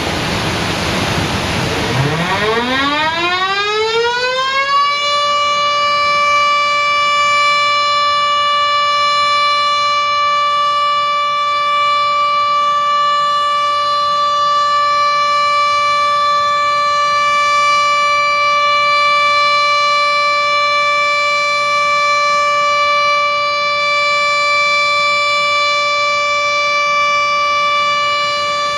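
Dam-discharge warning siren winding up from a low pitch over about three seconds, with a rush of noise as it starts, then holding one steady high tone. It is the warning for an emergency release of water from a dam.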